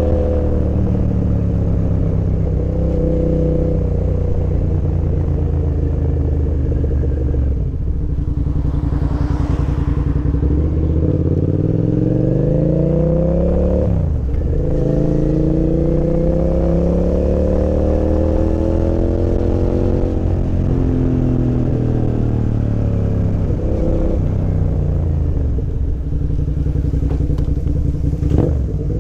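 Suzuki SV650's 90-degree V-twin through a full aftermarket exhaust, heard from the pillion seat. The engine note climbs under acceleration, drops sharply at a gear change about halfway through, then falls away and rises again several times.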